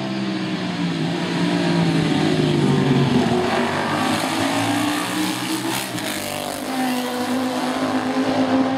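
Classic racing motorcycles passing at speed on a road circuit, several engines at high revs at once. Their pitch falls in the first few seconds as they go by, then rises again as throttles open.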